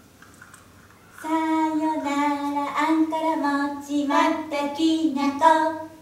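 A high voice singing a simple children's tune, unaccompanied, starting about a second in with short held notes.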